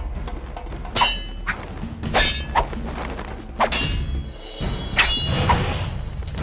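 Swords clashing in a fight: a string of about seven sharp metallic clangs, several with a short ringing tail, over background music.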